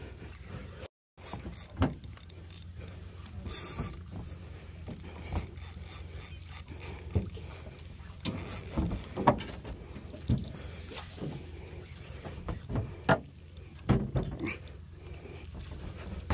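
Steady low rumble of a fishing boat, with irregular sharp clicks and knocks as a spinning rod and reel are worked during a lure retrieve.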